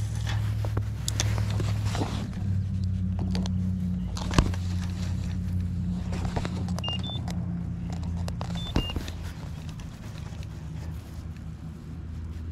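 An engine idling nearby, a low steady drone that fades away over the last few seconds. A sharp click comes about four seconds in, and two short high two-note electronic beeps sound near the middle.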